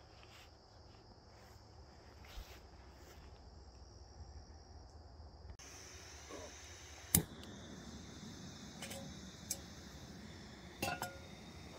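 Insects trilling in a steady, high-pitched drone; the drone changes pitch abruptly about halfway through. A few sharp clicks and knocks fall in the second half, the loudest about seven seconds in.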